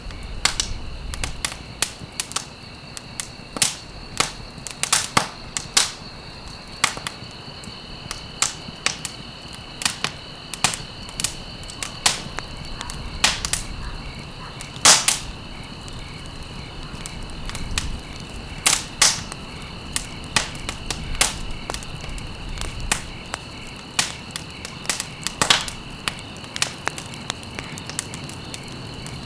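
Wood fire burning in a fireplace, crackling with irregular sharp pops and snaps over a low hiss; one pop about halfway through is the loudest. A faint steady high-pitched tone runs underneath.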